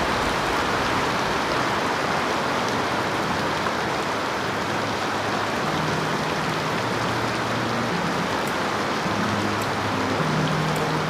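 Steady, fairly loud rain falling, an even hiss of drops, with faint low steady notes coming and going from about halfway through.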